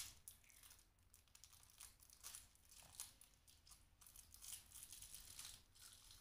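Faint crinkling and tearing of the thin plastic wrapper on a drink-box straw as it is peeled off, in scattered short crackles.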